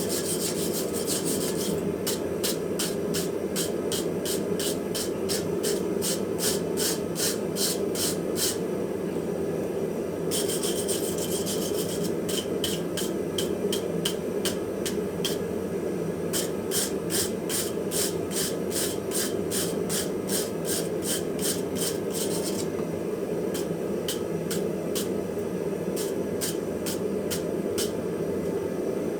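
Hand file rasping on forged steel in quick, even strokes, about three a second, with a couple of short pauses between runs, over a steady low rushing noise.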